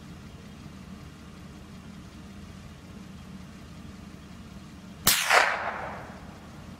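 A single rifle shot about five seconds in, loud and sharp, with its report echoing away over about a second. A steady low hum runs underneath.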